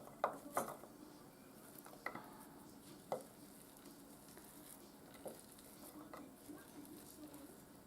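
A utensil clicking and scraping against a container as pinto beans are scooped out, several light knocks in the first second and a few more spaced out after, over a faint steady sizzle of food frying on low heat.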